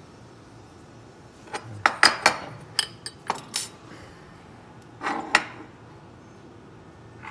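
Metal DC motor parts, armatures and steel housing cans, being set down and knocked against a workbench: a quick run of clinks and knocks from about one and a half to four seconds in, then two more around five seconds.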